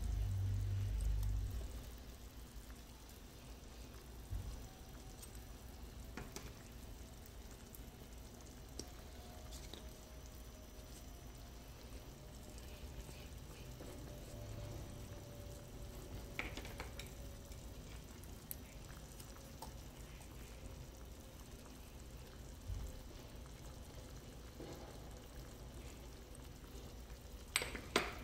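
A pan of beans cooking quietly on a gas stove. A low rumble sounds in the first second or two, a few light clicks come from spice jars and the spoon against the pan, and two sharper clicks come near the end.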